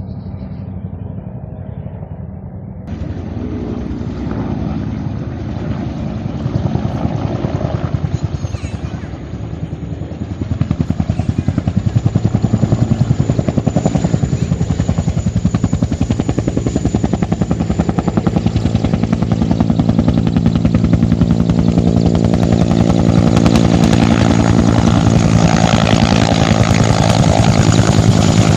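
Water-bombing helicopter's rotor beating in a fast, steady chop over its engine's drone, growing louder over the stretch.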